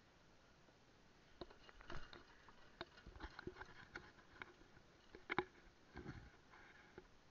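Near silence broken by faint, irregular clicks and taps, with the loudest knock about five seconds in.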